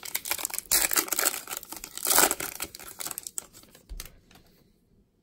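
Foil wrapper of a 2019 Topps baseball card pack being torn open and crinkled by hand. The crackling is loudest about two seconds in, then fades to a few light clicks near the end.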